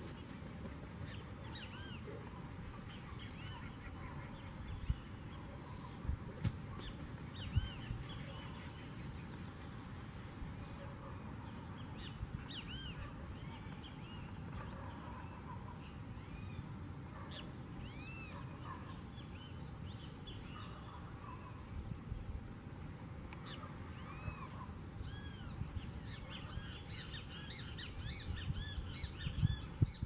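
Outdoor natural ambience: small birds chirping with short, rising-and-falling calls, busier near the end, over a steady high-pitched insect trill and a low rumble. A few dull thumps come between about five and eight seconds in.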